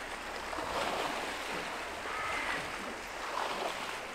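Small waves lapping and wind over open water, a steady rushing noise that swells and eases slightly, with a faint brief high tone about two seconds in.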